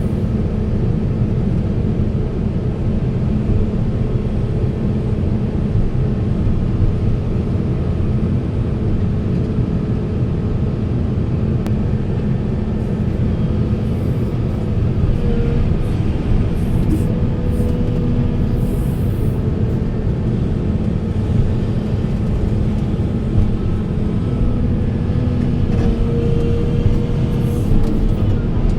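Heavy excavator's diesel engine running steadily, with a low, constant rumble.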